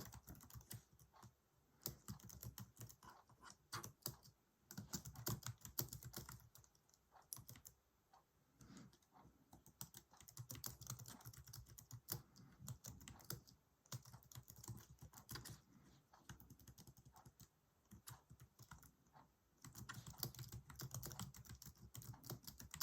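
Typing on the keyboard of an Astrohaus distraction-free smart typewriter: faint, quick key clicks in runs of a few seconds, with short pauses between them.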